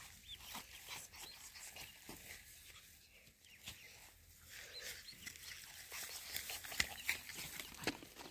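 A group of ducklings peeping, short high chirps scattered irregularly, with a few sharp clicks near the end.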